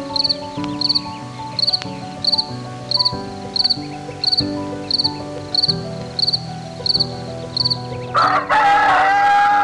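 A rooster crows loudly, starting about eight seconds in and running on past the end. Before it there is background music and a short high chirp repeating about one and a half times a second.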